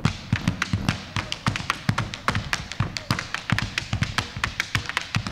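Malambo percussion: boleadoras and stamping boots striking a wooden stage floor in a fast run of sharp clacks, many strikes a second, with low thumps underneath.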